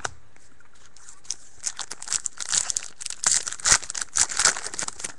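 A 2010-11 SP Authentic hockey card pack wrapper being torn open and crinkled: a dense run of sharp crackles from about a second and a half in, thinning out near the end.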